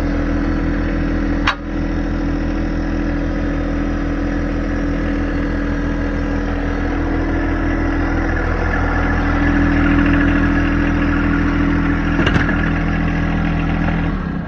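John Deere 2025R compact tractor's three-cylinder diesel engine running steadily, a little louder around the middle. Two sharp clicks cut through it, one about a second and a half in and one near the end.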